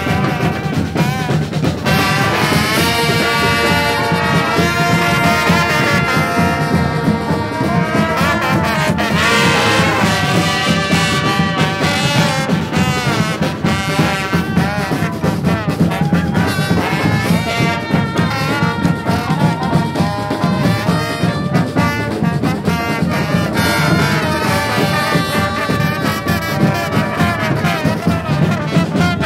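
Live brass band music: trumpets and trombones playing a loud, continuous tune over a steady beat.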